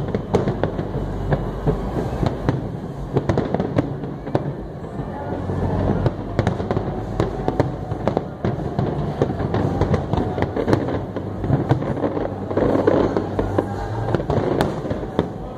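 Aerial fireworks display going off continuously: a steady run of bangs and crackling pops over a deep rumble.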